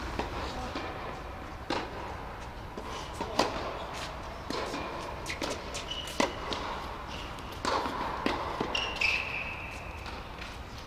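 Tennis balls being struck by rackets and bouncing on an indoor court, sharp hits every second or two, with a few short high squeaks of shoes on the court around the middle and near the end.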